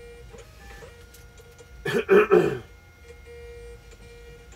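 A short, wordless vocal sound from a person about two seconds in, over faint scattered ticks and a faint steady hum.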